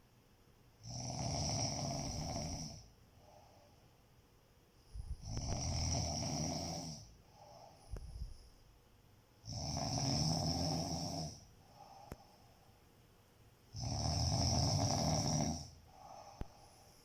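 Snoring in sleep: four long, rasping snores come about every four seconds, each followed by a softer, shorter breath.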